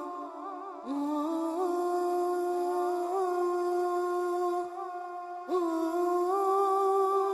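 Background music: a voice humming a slow wordless melody in long held notes with vibrato. It breaks off briefly near the start and again about two-thirds of the way through.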